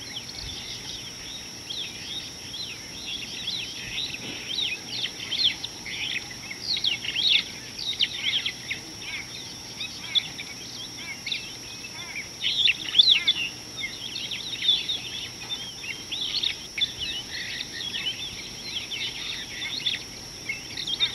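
Many small birds chirping and twittering in quick, overlapping calls, over a steady high-pitched insect drone.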